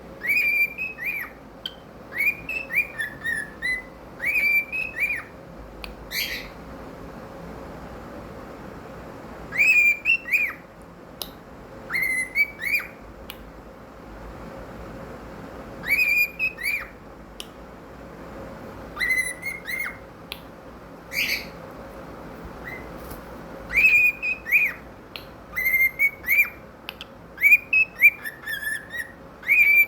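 Cockatiel singing: short clear whistled phrases with quick up-and-down pitch turns, in bursts every few seconds with brief pauses between, the phrases coming closer together near the end.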